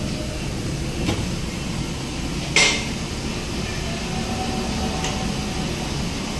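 Steady background noise with a couple of small metal clicks and one sharp metallic clink about two and a half seconds in, as a screwdriver works at the shift solenoids on an automatic transmission valve body.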